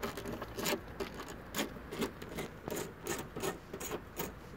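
10 mm socket wrench turning and loosening a small steel bolt: a run of irregular metal clicks and scrapes, about two or three a second.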